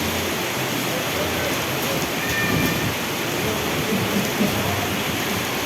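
Heavy storm rain pouring steadily onto hard surfaces, one dense, even downpour.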